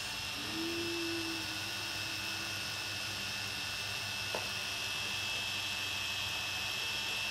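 Holy Stone HS110D quadcopter's small motors spinning its propellers at idle while it sits on the ground, a steady high-pitched whine over a low hum, during a test run after a propeller blade was replaced. A faint click comes about four seconds in.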